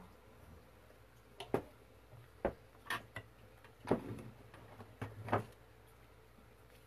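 A sheet of watercolour paper being pressed and slid flat by hand on a tabletop: about five separate light taps and knocks spaced over several seconds, over a faint low hum.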